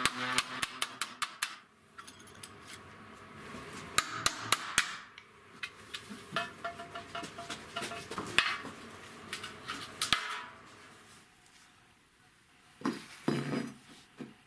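Sharp metal taps and scrapes of a hand tool worked against a plastered wall and a steel profile: a quick run of taps at the start, another cluster about four seconds in, and single knocks later. Near the end, two duller knocks.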